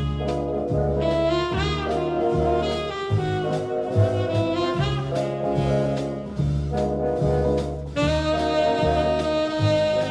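Jazz music with horns playing over a bass line that moves in even steps.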